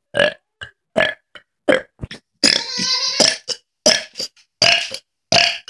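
A person burping: a quick string of short burps, with one long drawn-out burp about halfway through.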